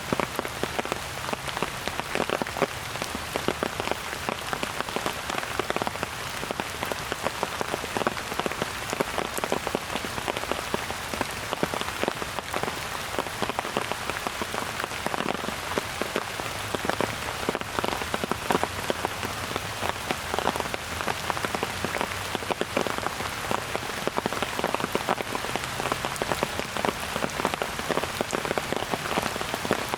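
Steady rain falling, a dense hiss with many close drops landing in sharp ticks.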